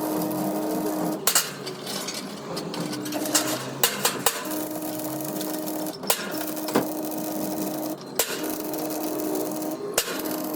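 Metalworking sounds: sharp knocks every second or two over a steady hum that cuts in and out about every second.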